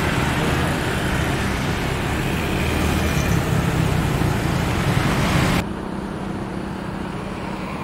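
Steady rumble and hiss of jet airliners taxiing, mixed with traffic noise; it drops suddenly to a quieter rumble about five and a half seconds in.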